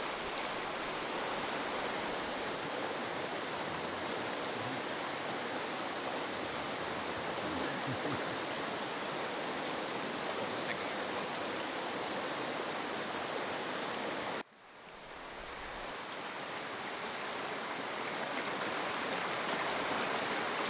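Steady rush of a shallow river's flowing water. It cuts off abruptly about two-thirds of the way through, then fades back in and builds to the same steady rush.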